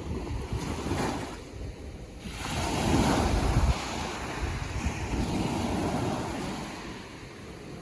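Ocean waves surging and washing in, a wave building about two and a half seconds in and peaking briefly before easing off. Wind rumbles on the microphone underneath.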